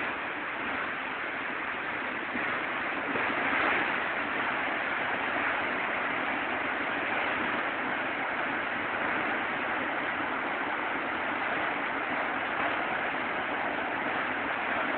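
Heavy storm-swell surf breaking on a sandy beach, heard as a steady, unbroken rush of white water with no single crash standing out.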